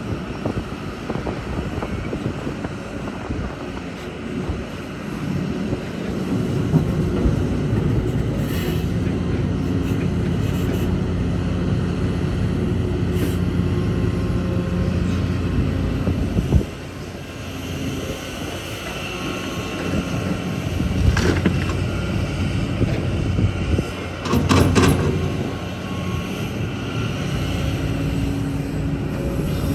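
Kobelco excavator's diesel engine running under changing load, with a few sharp clanks scattered through. The level drops suddenly about two-thirds of the way in as the engine eases off, then builds again, with a thin whine riding over the engine in the later part.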